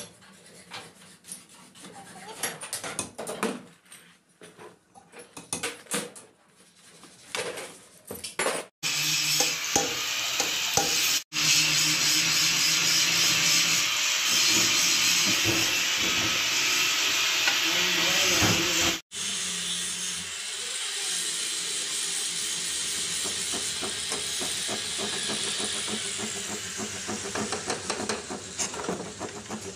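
Light metal clicks and taps of hand tools working on a sewing machine head. About nine seconds in this gives way to a loud, steady hiss of a pressurised spray jet playing over the stripped sewing machine body. The hiss drops a little lower near the two-thirds mark and runs on.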